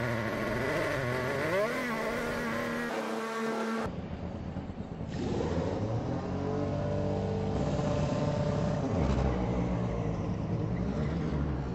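Formula 1 car's V6 turbo-hybrid engine running in the pit box, its pitch rising and falling as it is revved. After a cut about four seconds in comes broadcast sound of another F1 pit stop, with car engines running steadily.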